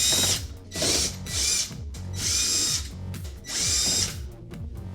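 Power screwdriver running in five short bursts of high whine, backing out the screws that hold a dishwasher's outer door panel.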